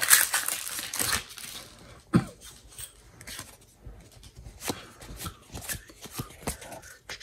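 Foil wrapper of a Pokémon booster pack crinkling loudly for about a second and a half as it is opened, then the cards being handled and slid through by hand, with scattered soft clicks and rustles.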